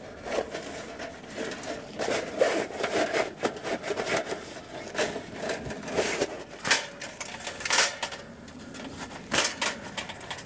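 Folded stainless-steel grill panels being slid into a fabric carry bag: scraping of metal against metal and cloth, rustling of the bag, and a few light knocks.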